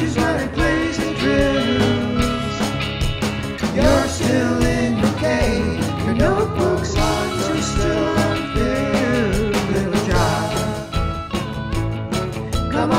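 Rock song with a lead singer over a steady drum beat and keyboard.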